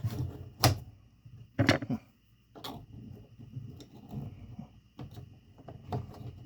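Sharp small clicks and taps, about half a dozen, the loudest about a second in: the wire and the thermostat's plastic terminal block being handled as a thermostat wire is worked into its terminal slot by hand.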